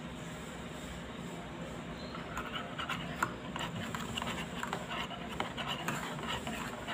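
Metal spoon stirring kopi tubruk, ground coffee in hot water, in an enamel mug. From about two seconds in it scrapes and clinks against the mug in quick, irregular strokes over a steady hiss. The coffee is being stirred to raise the crema.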